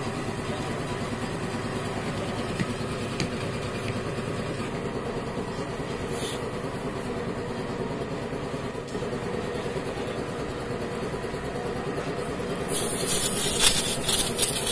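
A vehicle engine idling steadily in the background. About two seconds before the end, a louder rough rasping and scraping starts as the glued repair plug on its insertion tool is pushed into the puncture hole in the tubeless tyre.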